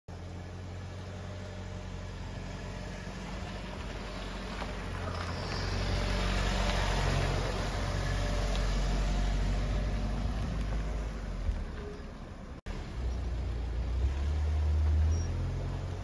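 SUV engine running at low speed as the vehicle drives slowly past at close range and pulls away, loudest midway as it passes. The sound drops out suddenly about three-quarters of the way through, then a steady low engine hum resumes.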